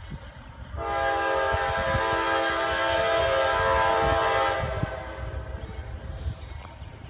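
CSX freight locomotive's air horn sounding one long blast of several notes together, about four seconds, as the train approaches, over a low rumble.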